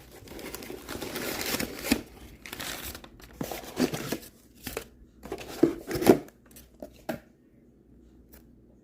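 Packaging crinkling and rustling as it is handled: a continuous rustle for about three seconds, then scattered sharper rustles and knocks that stop about seven seconds in.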